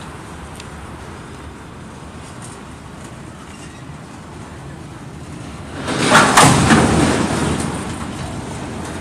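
Freight train of flatcars rolling past, a steady rumble of wheels on rail. About six seconds in there is a sudden loud surge of noise that fades over a second or two.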